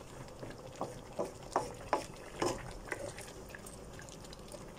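Thick chilli sauce simmering in a wok: bubbles popping irregularly, several in the first three seconds and fewer after, over a faint steady hiss.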